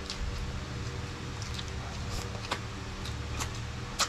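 Close-up eating sounds: crisp fried chicken being chewed and crunched, with scattered sharp wet clicks and smacks, the sharpest just before the end. A steady low hum runs underneath.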